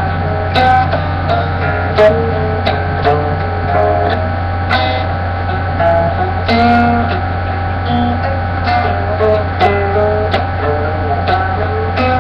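Music played on a plucked string instrument, an uneven stream of short notes and brief strummed chords, over a steady low hum.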